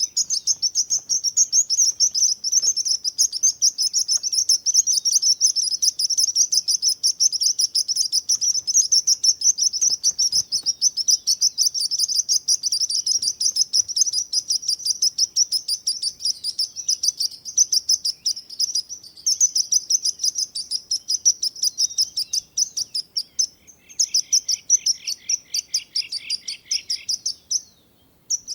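Sparrows chirping: fast, high-pitched chirps repeated several times a second without let-up. Near the end a second, lower run of quick chirps joins in for a few seconds before a brief pause.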